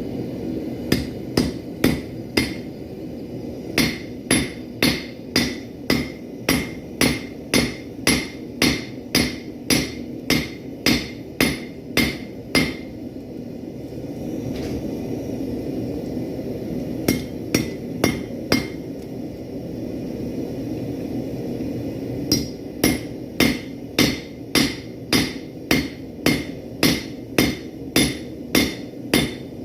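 5 lb hammer striking hot steel on a Harbor Freight anvil, in runs of about two blows a second with a few pauses. A steady low rumble of the single-burner propane forge runs underneath.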